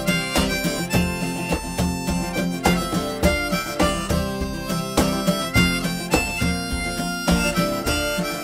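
Harmonica played in a neck rack, carrying the melody with held notes over steadily strummed acoustic guitar: an instrumental break in a folk song.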